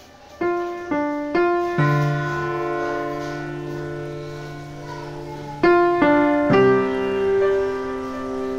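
Background piano music: three notes struck about half a second apart lead into a long held chord, then a second run of three notes and another held chord.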